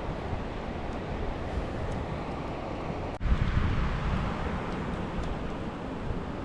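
Wind buffeting the microphone over a steady outdoor rushing noise, with a low rumble; the noise jumps a little louder about three seconds in.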